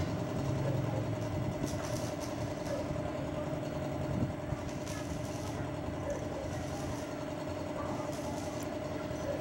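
Steady background hum of a running engine or motor, with a faint knock about four seconds in.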